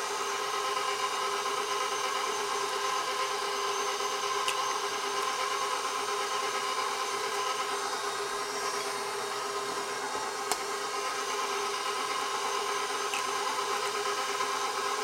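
Electric bowl-lift stand mixer running steadily at low speed, beating creamed butter and sugar. Three brief sharp clicks come through as eggs are cracked and dropped into the bowl one at a time.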